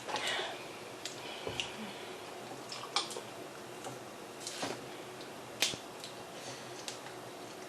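Scattered sharp clicks and small crackles of head-on freshwater shrimp shells being cracked and peeled by hand, about one every second or so.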